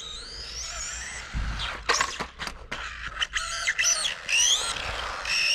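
The electric motor of a 1/18-scale RC truck whines, rising and falling in pitch as it speeds up and lets off, with a few short scrapes in the middle.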